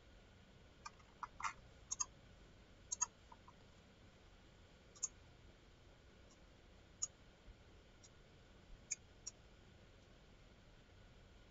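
Computer mouse buttons clicking, faint: about a dozen scattered clicks, including a few quick double clicks in the first few seconds, then sparser, stopping with a little time left.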